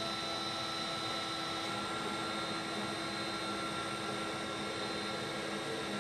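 Stepper motors of a 6090 CNC router driving the spindle carriage along the X axis at a steady jog speed: an even whine with a couple of steady high tones over a low hum.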